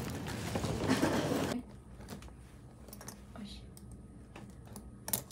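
Noisy chatter that cuts off about a second and a half in, followed by a quiet room with scattered light clicks and taps of tableware and one sharper clack near the end.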